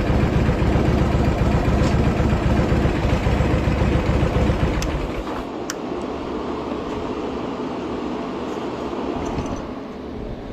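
Harley-Davidson Shovelhead V-twin engine, freshly rebuilt top end, running under way; about halfway through its deep low rumble drops away, leaving a quieter steady noise with a couple of sharp clicks.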